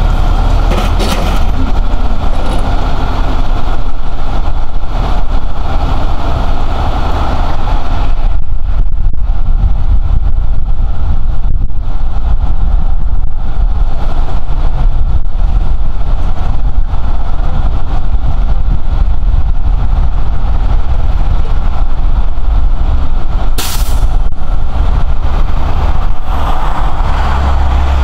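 Bucket truck's engine running steadily at idle while the boom holds the bucket up at the pole.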